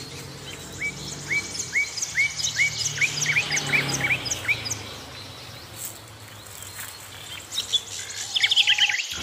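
Small birds chirping outdoors: a string of short rising chirps, about two a second, quickening a few seconds in, then a fast, louder run of chirps near the end.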